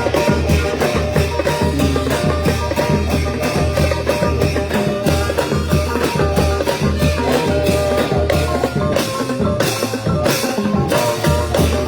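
Thai brass band (trae wong) playing procession music: held horn notes over a steady, regular drum beat with cymbal crashes.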